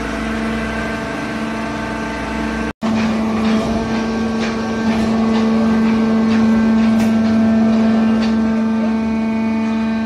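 Hydraulic cardboard baler running: a steady, loud motor hum from its hydraulic pump unit and conveyor drive, with faint light ticks over it. The hum breaks off for an instant about three seconds in, then carries on slightly louder.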